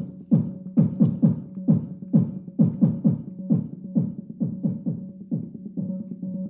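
Electronic noise music: a run of sharp, irregular hits, about three a second, each dropping quickly in pitch, over a steady low drone. The hits grow weaker toward the end as a steady higher tone comes in.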